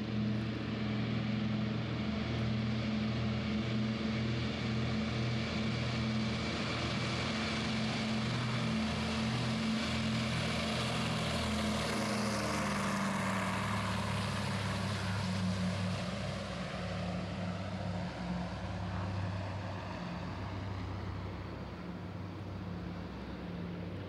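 A DC-3's twin radial piston engines running steadily, mixed with the OH-6A Loach helicopter flying nearby. The noise swells about halfway through, then eases slightly near the end.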